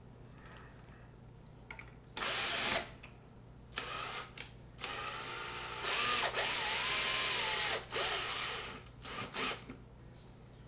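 Cordless drill spinning a quarter-20 threaded rod through the wall of a PVC pipe into tapped holes. It runs in several stop-start runs, the longest about two seconds near the middle with its pitch wavering.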